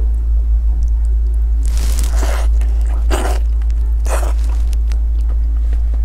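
Close-miked eating of boiled fatty pork: chewing with small mouth clicks and the meat being pulled apart by hand, with three louder bursts about two, three and four seconds in. A steady low hum runs underneath.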